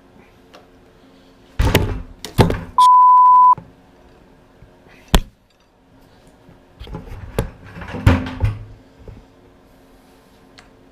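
Metal tool knocks and clunks as an Allen bit and breaker bar strain against a motorcycle's Loctited stock bar end, in bursts about two, five and eight seconds in. A short, steady beep about three seconds in is the loudest sound.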